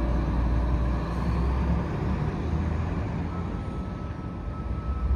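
Steady low rumble of street traffic, with the last ring of the church bells fading out within the first second.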